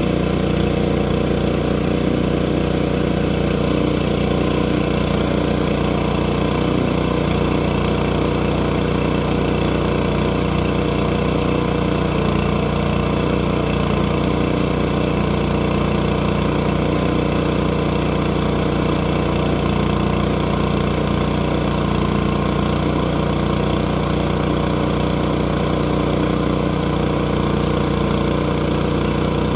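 Engine running steadily at an even speed, with no change in pitch or load.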